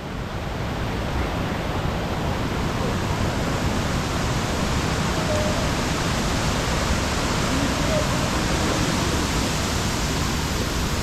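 Rushing stream water running steadily, a loud, even rush.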